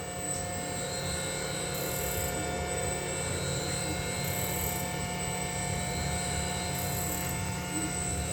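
Siemens Simodrive servo drive module running a servo motor on a test bench: a steady electrical hum with several constant whining tones. A short high-pitched hiss-whine comes in about every two and a half seconds, as in repeated drive test cycles.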